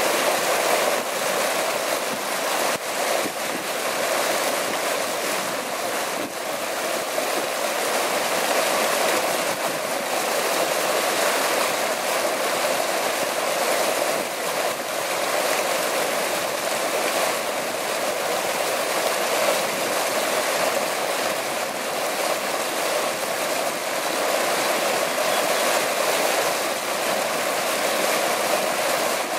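Dome-shaped fountain head with water welling over its rim and pouring in a sheet into a pool, a steady splashing churn of falling water.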